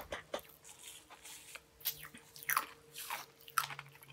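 Sour Pop Rocks candy being chewed in the mouth: faint, irregular crunches and small crackles at an uneven pace.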